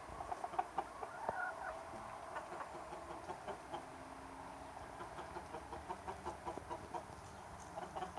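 A flock of chickens clucking, many short clucks scattered throughout from several birds.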